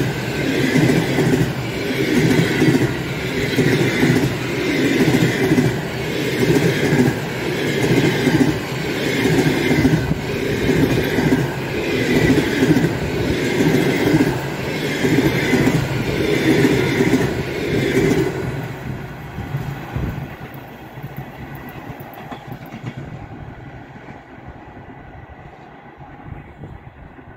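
Passenger train coaches rolling past at speed, their wheels clattering in a steady rhythm about once a second. The clatter drops away suddenly about 18 seconds in as the last coach goes by, and the train's rumble fades into the distance.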